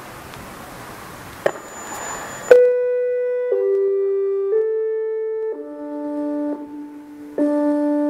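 Faint outdoor hiss and a sharp click, then an ATI HPSS-32 electronic siren's horn array starts its test chime alert about two and a half seconds in: a tune of sustained chime notes, stepping to a new pitch about once a second.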